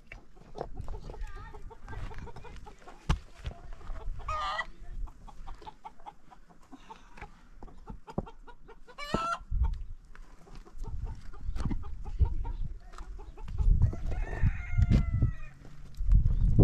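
Chickens clucking and a rooster crowing: three separate pitched calls, about four, nine and fourteen seconds in. Scattered knocks and low rumbling run underneath.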